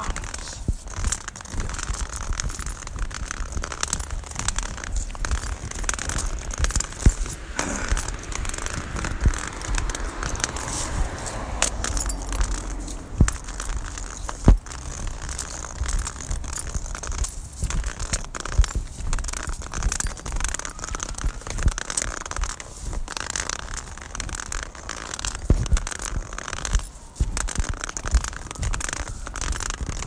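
Steady rustling and crackling handling noise over a low rumble, with scattered sharper clicks, typical of a phone recorder carried in a pocket or hand while walking.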